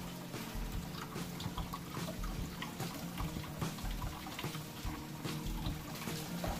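A thin stream of tap water running into a stainless steel kitchen sink and a mug, trickling and splashing, with many small splashes as a cat's paw breaks the stream.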